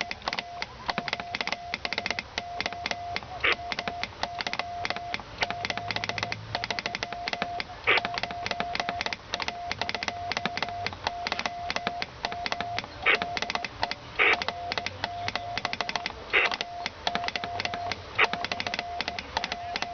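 Morse code (CW) on an amateur radio transceiver: a single steady tone keyed on and off in dots and dashes. Dense crackling static lies under it, with a louder click now and then.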